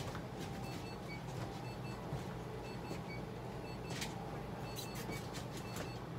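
Steady low machine hum, with faint short high-pitched electronic tones coming and going and a single sharp click about four seconds in.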